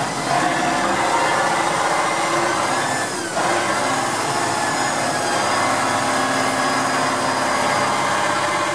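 Tatra 813's air-cooled V12 diesel running under load as the 8x8 truck drives through loose gravel, a steady, loud, many-toned drone with a brief dip about three seconds in.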